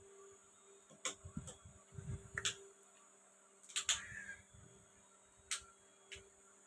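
Sharp plastic clicks and taps from a smartphone being handled on a repair bench, about seven in all, with short spells of rubbing and handling between them. A faint steady hum runs underneath.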